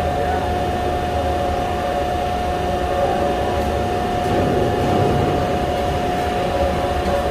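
Heavy sheet-metal shop machinery running with a steady hum and a constant high-pitched whine.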